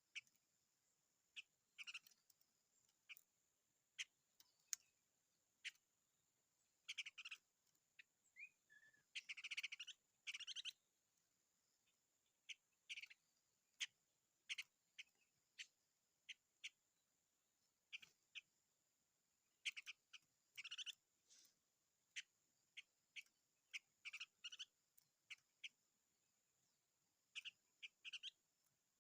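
A small bird calling in short chips and quick buzzy, rattling trills, scattered irregularly with gaps between them, one call a brief falling whistle.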